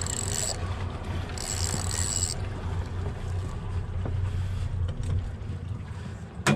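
Boat's outboard motor running steadily at trolling speed with water and wind noise. Twice in the first couple of seconds comes a short high buzz, the reel's drag paying out line as a hooked barracuda runs. A single sharp knock near the end.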